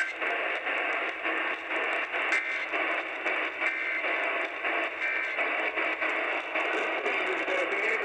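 AM broadcast audio playing through the small speaker of a portable emergency weather alert radio: a steady, crackly hiss with a narrow, tinny sound, during an Emergency Alert System weekly test on the station.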